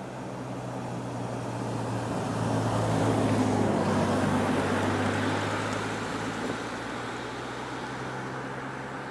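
A road vehicle passing. Its engine and tyre noise swell to a peak about three to four seconds in, then fade, over a steady low hum.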